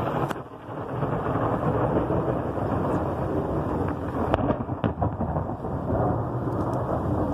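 Heavy thunderstorm rain pouring steadily over a continuous low rumble, with a couple of sharp clicks a little past halfway.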